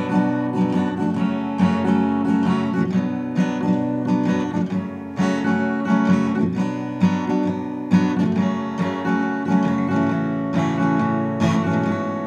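Acoustic guitar strummed in a steady rhythm, playing chords as a song's instrumental intro.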